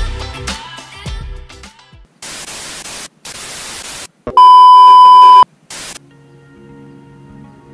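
An intro music jingle fades out. Then come short bursts of TV static hiss and a loud, steady test-tone beep lasting about a second, a colour-bar 'off-air' sound effect. About six seconds in, soft background music begins.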